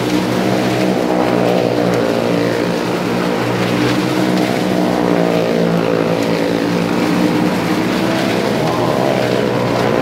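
Engines of a small hatchback car and a motorcycle riding around the vertical wooden wall of a well of death: a loud, steady engine drone with several pitches layered together.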